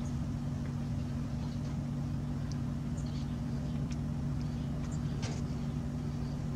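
Steady low background hum, with a few faint short clicks scattered through it.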